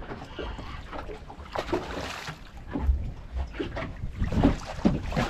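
Wind buffeting the microphone in irregular low gusts, with water slapping and splashing against a small boat's hull.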